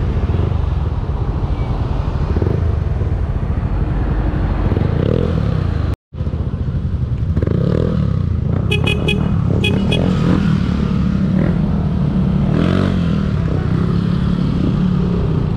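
Yamaha Mio Aerox 155 scooter's single-cylinder engine running steadily under way, with a loud low rumble throughout. The sound cuts out completely for a moment about six seconds in, and a few short high beeps come around nine to ten seconds in.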